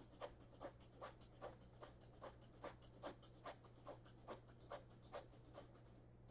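Near silence with faint, evenly spaced clicks, about two and a half a second, over a low steady hum.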